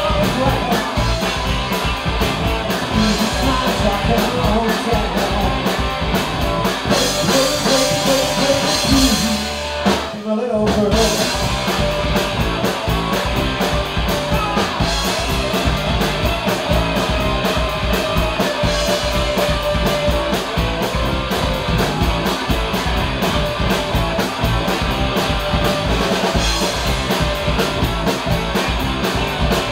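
Live rock band playing: electric guitars, bass guitar and drum kit, loud and driving. The band stops for a split second about ten seconds in, then crashes back in.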